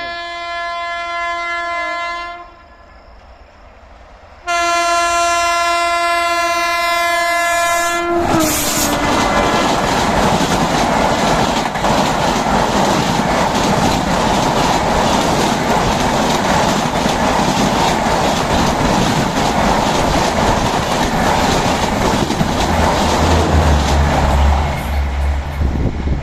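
WAP-7 electric locomotive's horn sounding two long blasts, the second dropping in pitch at its end as the locomotive passes. Then the train's LHB coaches rush past at speed with a steady loud rush and rapid wheel clatter over the rail joints.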